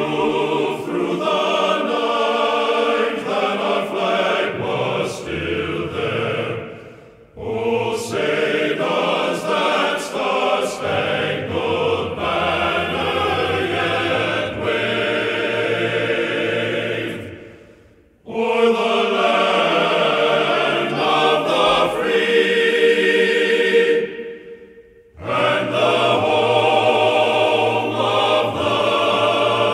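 Background music with choir-like singing, in long phrases that fade out briefly and start again three times.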